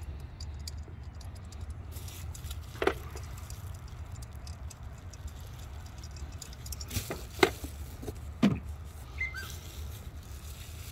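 A handful of sharp clicks and knocks, parts and tools being handled while old stock ignition coil packs are pulled from the engine, over a steady low rumble.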